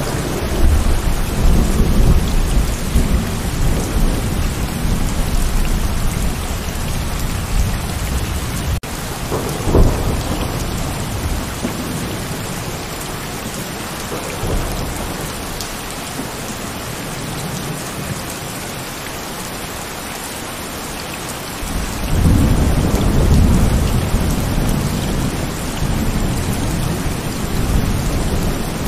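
Heavy rain with a steady hiss, and thunder rumbling low under it. There is a sharp thunderclap about ten seconds in, and a long rumble swells up again in the last third.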